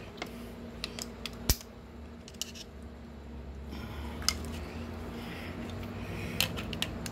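Scattered light metallic clicks and clinks of a socket and other hand tools being handled and tried on the rotor bolts, the sharpest about a second and a half in, over a faint steady hum.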